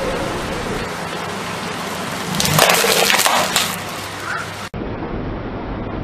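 A car tyre crushing plastic cotton-bud tubs resting on bags of peanuts: a dense burst of cracking and crunching about two and a half seconds in, lasting about a second, over a steady low rumble.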